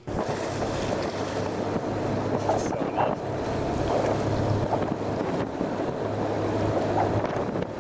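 Wind on the microphone and choppy sea water, with a steady low motor hum underneath.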